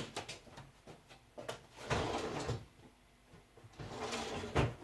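Sharp clicks and knocks with two short spells of rubbing, the sounds of handling and wiping a toaster oven's glass door; a louder knock comes near the end.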